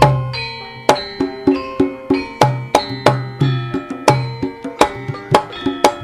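Javanese gamelan (karawitan) music: struck metallophones ringing in a quick, even run of notes, with deep hand-drum strokes underneath.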